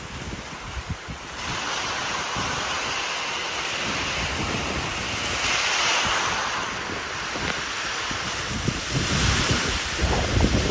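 Strong thunderstorm wind gusts blowing as a steady hiss that swells and eases, with heavy wind buffeting on the microphone near the end.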